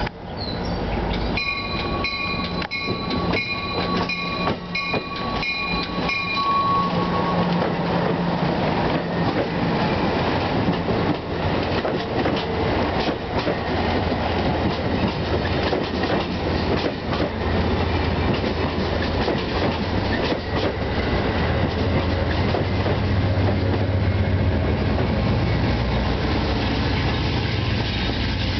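Amtrak passenger coaches passing close at speed: steel wheels rumbling and clicking over the rail joints, with a thin high ringing for the first several seconds. Near the end a low diesel rumble builds as the GE P42 Genesis locomotive pushing at the rear comes past.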